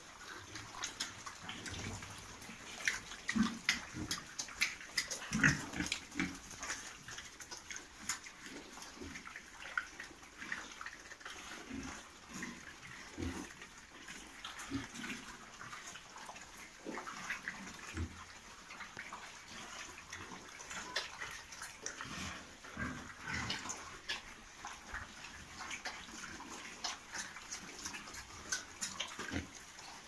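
Pigs grunting and moving about a concrete pen: irregular short grunts among many small clicks and knocks.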